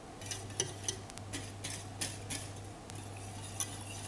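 Wire whisk stirring palm sugar and water in a stainless steel saucepan, its tines ticking against the metal in irregular taps, two or three a second, over a low steady hum.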